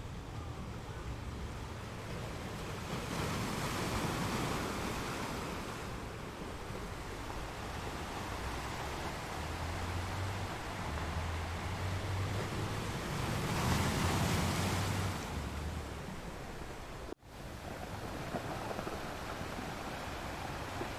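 Sea waves washing onto a shore in a steady rush, swelling louder twice, about four and fourteen seconds in. The sound cuts out for an instant about seventeen seconds in.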